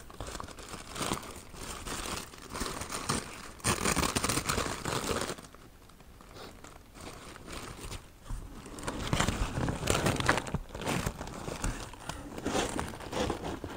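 Green tissue paper crinkling and rustling in the hands as it is unwrapped from a small gift item, in irregular bursts with a quieter spell about midway.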